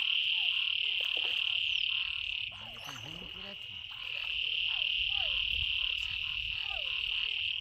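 A dense, steady, high-pitched chorus of frogs in a rain-flooded field, breaking off for about a second and a half near the middle, with shorter falling calls beneath it. Low sloshing of muddy water as a man wades and pulls up vines.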